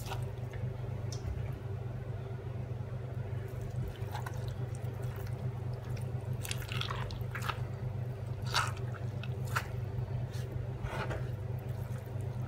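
Wet bread stuffing soaked in milk and butter squelching as it is pushed by hand into the cavity of a raw chicken: short, scattered wet squishes, several close together from about six seconds in. A steady low hum runs underneath.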